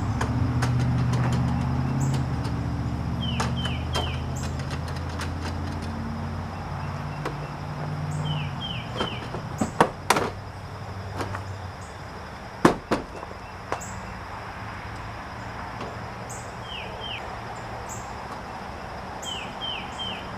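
A vehicle engine hum that fades away about twelve seconds in, a few sharp clicks and knocks of hand work on car parts, and a bird giving quick falling chirps in threes, four times over.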